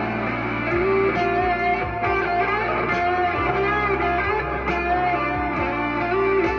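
Cherry-red SG-style solid-body electric guitar played amplified: picked single notes and chords ringing on, one after another.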